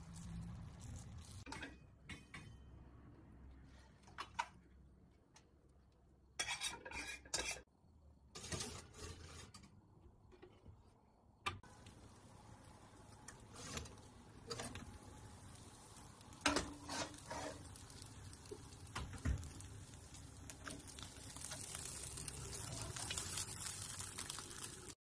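Kitchen clatter of a metal cooking pot and utensils: scattered knocks, clinks and scraping in short bursts, with a steady hiss building near the end.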